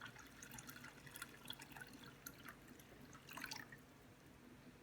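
Faint water dripping and trickling into a cat water fountain's plastic water bucket as it is filled, heard as small scattered drips and ticks with a slightly louder patch about three and a half seconds in.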